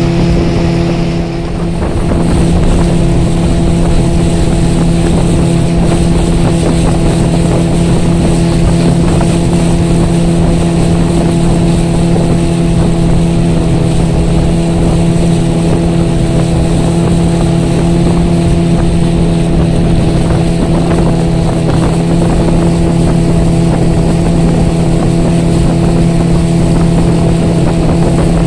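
15-horsepower outboard motor driving a small boat at speed, a loud steady drone with rushing water and air under it. The drone dips briefly about a second in, then holds steady.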